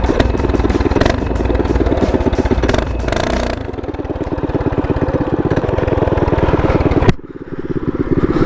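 Predator 212cc single-cylinder four-stroke mini bike engine running with rapid, even firing pulses. It speeds up about three and a half seconds in as the bike pulls away. The sound breaks off suddenly about seven seconds in and picks up again with the engine running.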